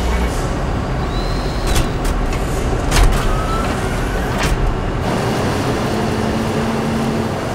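Industrial machinery on an aluminium wheel casting line running: a loud, steady mechanical rumble and hiss with a few sharp sudden bangs or hisses, the loudest about three seconds in.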